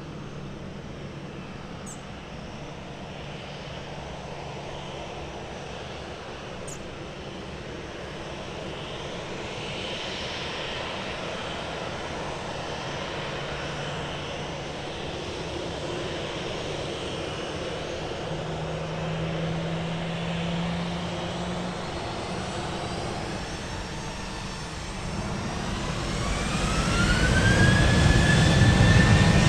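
Boeing 737's CFM56 turbofan engines running at low power with a steady hum. About 25 seconds in they spool up: a rising whine climbs and then holds as the sound grows much louder, takeoff thrust being set for the takeoff roll.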